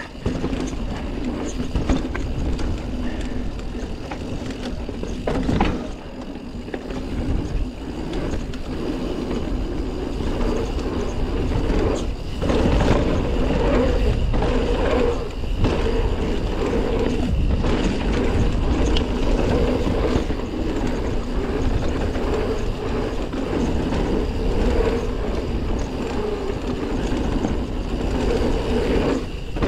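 Commencal Meta TR full-suspension mountain bike rolling fast down a dirt singletrack: steady tyre and rolling noise with a low rumble, broken by a few sharper knocks as the bike hits bumps.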